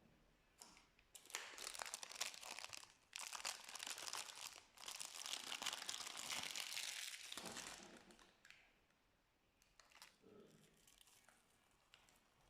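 Slime being worked by hand, crackling and crinkling with many small pops. It runs for about six seconds, then drops to a few faint ticks.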